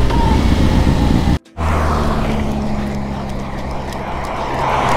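Loud low riding noise, then after an abrupt cut about a second and a half in, a motorcycle engine idling steadily.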